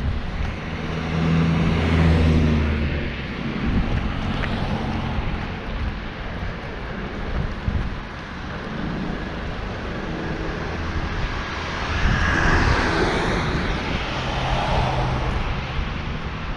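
Street traffic noise: a motor vehicle's engine hums past in the first few seconds, then steady rumbling road noise continues.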